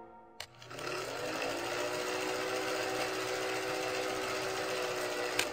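Film projector sound effect: a click, then a steady mechanical rattle and whir that rises slightly in pitch as it gets up to speed, ending with another click.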